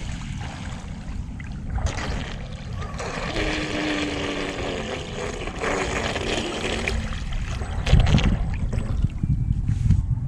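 ProBoat SonicWake 36-inch brushless electric RC boat running on the water, its motor tone heard through the middle, over a wash of water noise. Near the end, wind buffets the microphone.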